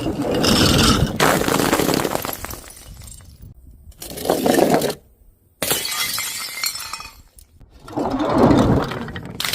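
Glass bottles and jars shattering, about four separate crashes of breaking glass one after another.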